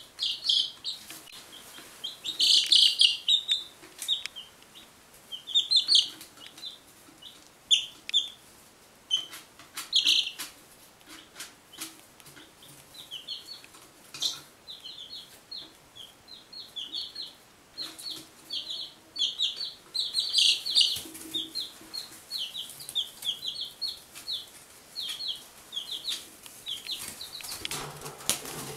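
Week-old Buff Orpington, Barred Rock and Golden Laced Wyandotte chicks peeping: short high cheeps in quick runs, some of them loud.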